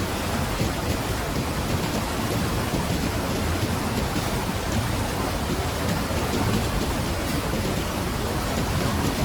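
Steady rush of water, even and unbroken, heaviest in the low end.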